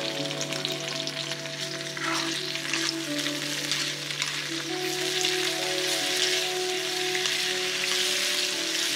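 Chopped onions, green chillies, curry leaves and tomato wedges sizzling and crackling in hot oil in a metal wok. From about the middle they are stirred with a spatula, and background music with held notes plays throughout.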